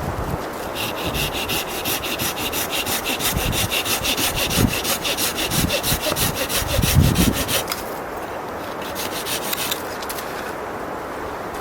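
Hand saw cutting through wood in quick, even strokes. It stops about eight seconds in, then saws briefly again.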